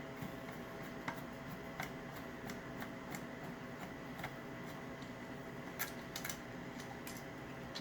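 Scattered light clicks and taps of small parts and a tool as an Onity hotel door lock is taken apart by hand, about a dozen over the stretch, over a faint steady hum.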